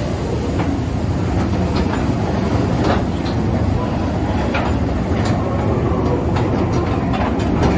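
Calico Mine Train rolling through a tunnel, heard from aboard its open wooden car: a steady rumble of the wheels on the track with scattered clicks and rattles.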